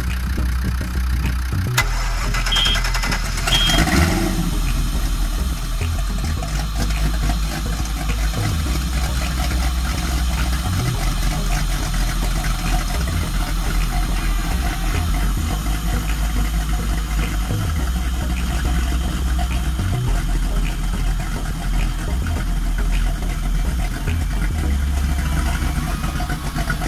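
Volvo Penta 7.4 GSi big-block V8 marine engine running on a bench test run out of the boat, mostly steady, with a brief louder burst about four seconds in.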